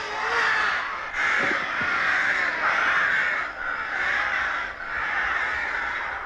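A flock of crows cawing, many harsh calls overlapping in waves with brief lulls.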